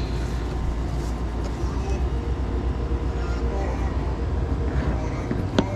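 Steady low rumble with noise above it, and a single sharp click about five and a half seconds in.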